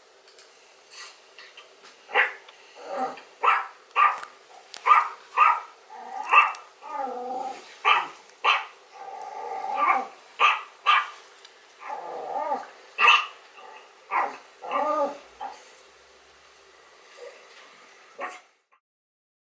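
A dog barking repeatedly in a long run of sharp barks, some with a growling edge, coming from a recording that is played back and sounding thin, with no deep tones. The barking stops about three quarters of the way in.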